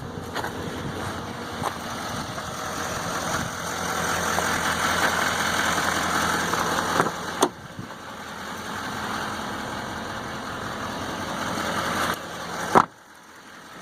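Duramax 6.6 L V8 turbodiesel of a 2015 Chevy Silverado 3500HD idling steadily. There is a sharp click about halfway through, and another near the end after which the sound turns much quieter.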